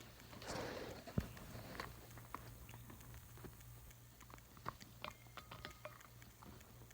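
Pet cockatoo chewing and crunching with its beak: scattered small clicks and crackles, with a soft rustle and one sharper click about a second in.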